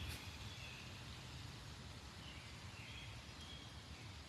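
Faint outdoor ambience with a few short, high bird chirps scattered through it, over a steady low rumble and hiss. A brief click comes right at the start.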